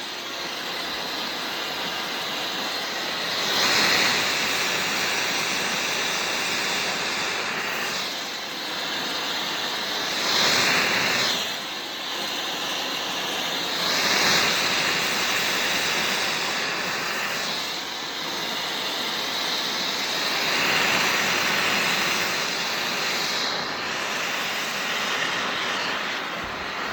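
Plumbing torch flame hissing steadily as it heats a copper male-adapter joint for soldering, swelling louder several times.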